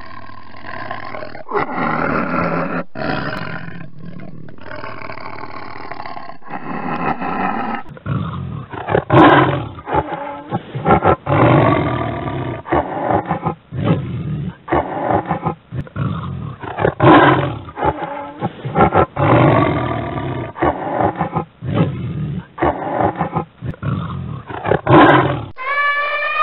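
Tiger roaring and growling in a long series of loud calls, coming every second or two after the first several seconds. Near the end the tiger calls stop and an elephant's trumpet begins.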